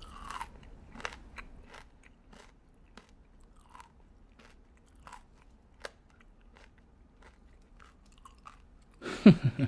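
A person chewing crunchy food, with irregular crisp crunches at a low level. About nine seconds in, a short loud vocal sound with a falling pitch.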